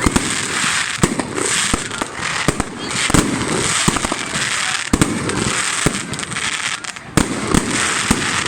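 Fireworks salute: irregular sharp bangs of bursting shells over a continuous crackle.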